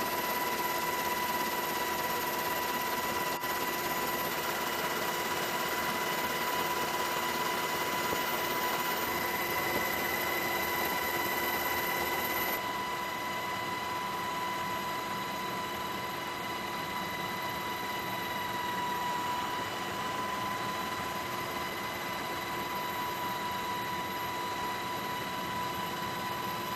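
Steady engine drone of an aircraft with a high, even whine over it, heard from on board the aircraft. About halfway through the sound becomes slightly quieter and duller.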